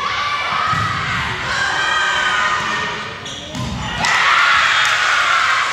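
Girls' voices shouting and cheering in a gymnasium during a volleyball rally, with a few dull thuds of the ball; the cheering swells about four seconds in as the set-winning point is scored.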